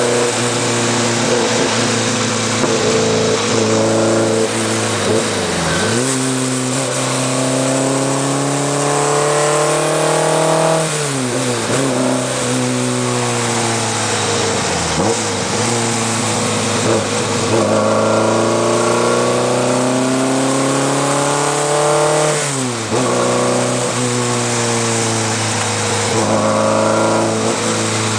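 Alfa Romeo TZ's twin-cam four-cylinder engine pulling hard through the gears. Its pitch climbs steadily and then drops sharply at each upshift, about five times in all.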